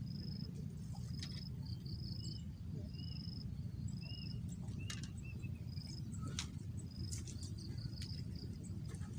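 Short high-pitched chirps from a small calling animal, repeating about once a second, with fainter arched chirps between them. Underneath runs a steady low rumble, with a few faint clicks.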